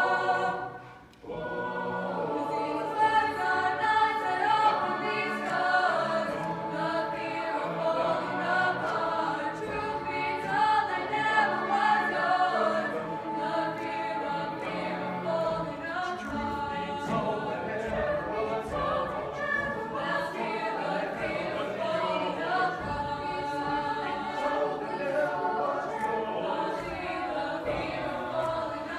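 Mixed choir of men's and women's voices singing together. The sound breaks off sharply about a second in, then the singing resumes and carries on.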